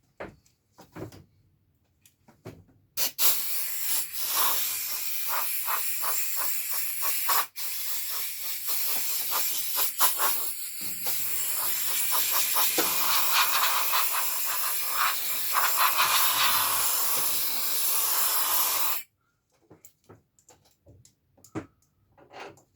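Compressed air hissing from a small air compressor's blow nozzle, blowing dust and lint off the trim: one long steady blast that starts suddenly, dips briefly twice, and cuts off suddenly. A few small clicks and handling sounds come before and after it.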